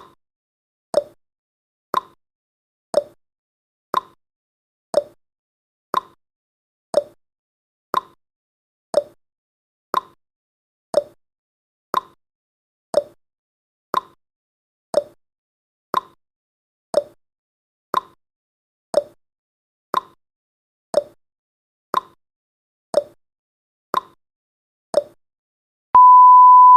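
Countdown timer sound effect ticking once a second, each tick short and quickly fading. Near the end the ticking stops and a steady high beep begins: the alarm marking that the countdown has reached zero.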